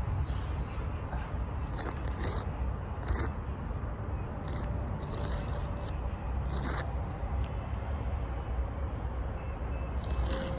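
Short scraping sounds on an aged asphalt shingle roof, several scattered strokes of a fraction of a second each, over a steady low rumble.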